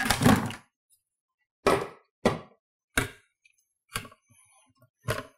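Hard plastic clunks and knocks from a food processor's lid being unlocked, lifted off and set down: a short rattle at the start, then about five separate sharp knocks.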